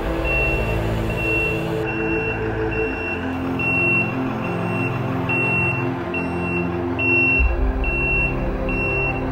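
Electronic reverse-warning beeps from the RC truck's sound module, a steady high beep about three times every two seconds, over the module's low diesel-engine rumble.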